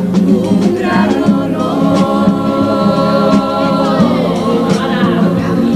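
Mixed men's and women's carnival comparsa choir singing in harmony, backed by Spanish guitars, a bass drum and a snare drum. The voices hold one long chord from about two seconds in to about four seconds in.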